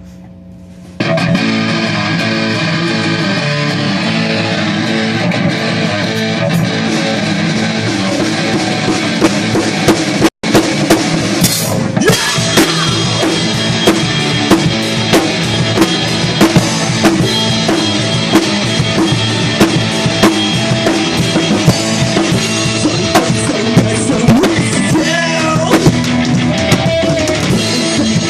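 Punk rock band playing live: amplified electric guitar and bass come in about a second in over a low amp hum, and the full drum kit drives in around ten seconds, with a brief dropout just before it.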